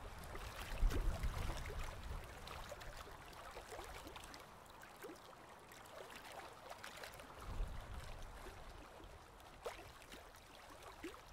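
Irregular rustling, crackling and scraping of nylon tent fabric and poles as a small dome tent is unpacked and pitched, with a low rumble about a second in and again past seven seconds.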